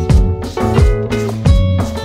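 Background music with a steady beat: sustained instrument tones over a regular low drum thump.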